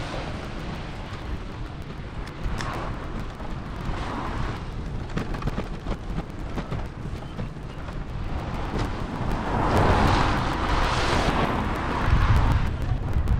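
Wind rumbling on the microphone and road noise, with a louder rushing swell of a vehicle passing a little over halfway through.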